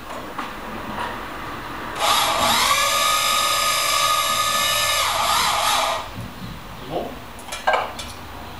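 An electric drill runs for about four seconds: it whines up to speed, holds steady, then winds down. A few sharp knocks follow near the end.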